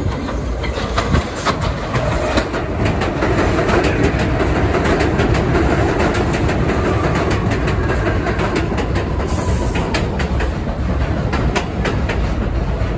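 New York City subway 6 train of R62A cars running into an elevated station close by: a steady rumble of steel wheels on the rails with rapid clicks as the wheels cross rail joints. It grows louder over the first few seconds as the train draws alongside.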